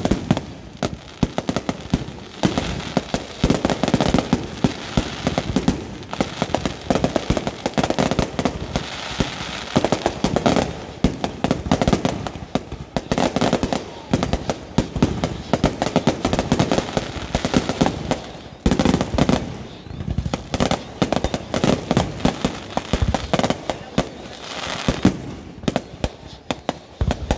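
Firecrackers going off in long, rapid strings of sharp pops.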